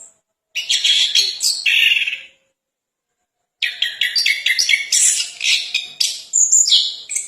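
Chestnut-capped thrush (anis kembang) singing: two long, rich phrases of rapid, varied high whistles and trills, separated by a pause of about a second.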